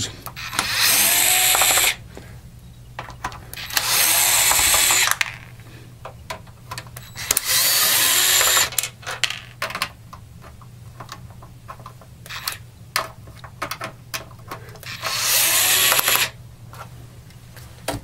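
DeWalt cordless electric screwdriver whirring in four short runs of about a second and a half each, backing the screws out of the underside of a PlayStation 1's plastic case. Small clicks and taps of handling fall between the runs.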